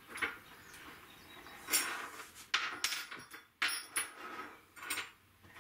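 Several sharp knocks and clatters at irregular intervals, from tools and metal parts being handled and set down, most of them in the middle of the stretch.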